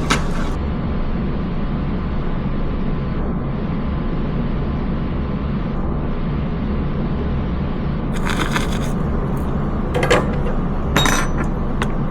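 A steady low hum runs throughout. From about two-thirds of the way in, small hard objects give several short clicks and clinks as they are handled on a desk.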